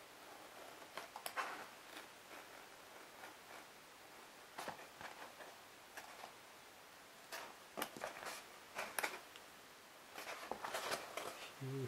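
Cutter knife blade slicing through soft polyethylene foam mask parts: faint, irregular scraping strokes in short clusters, loudest about eight to nine seconds in and again near the end.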